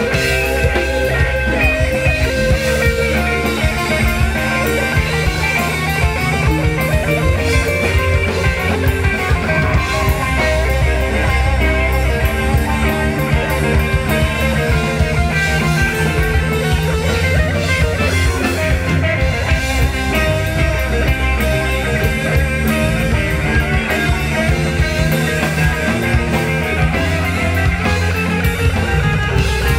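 A live rock band playing: electric guitar over a drum kit and bass, continuous throughout.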